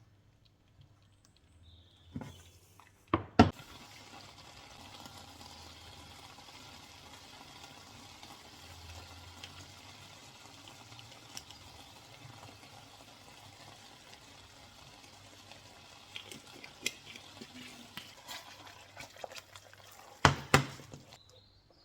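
Kitchen tap running water steadily for about seventeen seconds, with a few clunks of a container or the tap as it starts and again as it stops.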